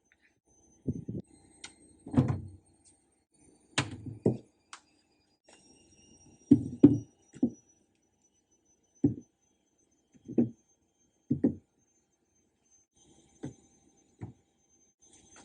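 About a dozen irregular thunks and knocks of items being set down and handled, spaced roughly a second apart, a few in quick pairs.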